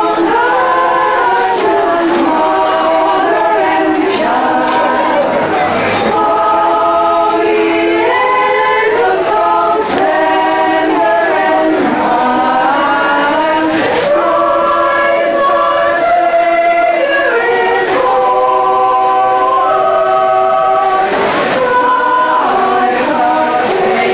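Women's vocal group singing together in harmony, holding chords that shift every second or two.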